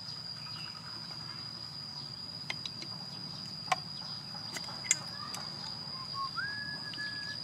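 A steady high-pitched insect trill runs throughout. Over it come a few sharp clicks as a small lighter and a tin of gasoline are handled during refilling, and a short whistle-like tone steps up in pitch near the end.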